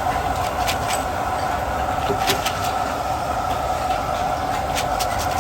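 A steady mechanical hum with scattered light clicks.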